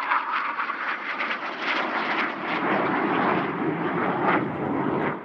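BAE Hawk jet trainer passing low: a rushing jet-engine noise with a crackling edge, which shifts from a higher hiss to a deeper rumble as it goes by, then cuts off suddenly.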